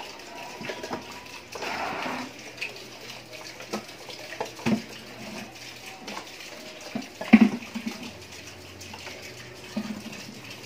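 Dishes being hand-washed in a plastic basin of water: water sloshing and splashing, with a hissing splash about two seconds in. Plastic and stainless-steel containers knock together now and then, the loudest knock about seven seconds in.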